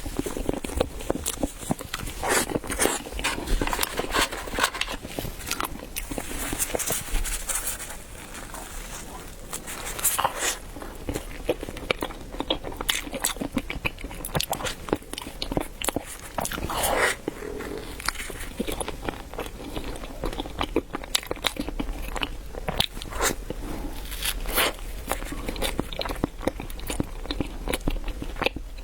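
A person biting and chewing chilled bread, with many irregular sharp mouth clicks and crunches.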